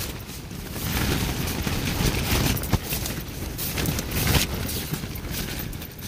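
Tent fabric flapping and snapping in gale-force wind, with the gusts rumbling and buffeting against the tent and the microphone; the gusts swell and ease, strongest about a second in and again past the middle.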